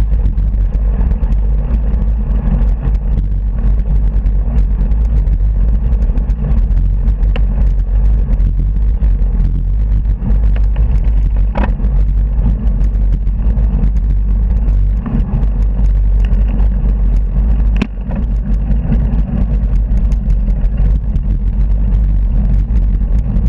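Wind rushing over the microphone of a camera on a moving bicycle: a loud, steady low rumble. A couple of sharp clicks come about halfway through and again later.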